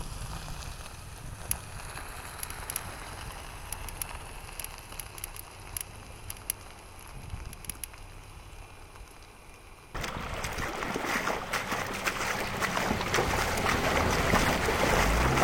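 A 2024 Toyota Land Cruiser on a dirt road: a low, even rumble of tyres with scattered small ticks of gravel. About ten seconds in it cuts to the much louder rushing and splashing of water as the SUV wades through a shallow creek.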